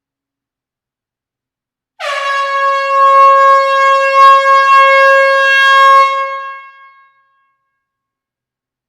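An air horn sounding in an enclosed hall: one long, steady blast of about five seconds, starting about two seconds in with a brief drop in pitch as it catches, then dying away.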